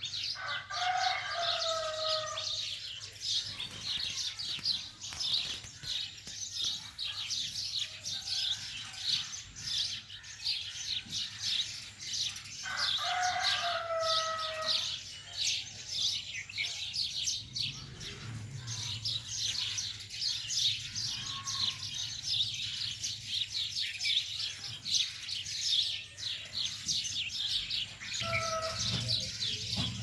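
A dense, continuous chorus of small birds chirping and twittering. Over it, a louder drawn-out call of about two seconds, falling slightly in pitch, comes about a second in and again about halfway, with a short one near the end. A low hum joins in for a few seconds after the middle.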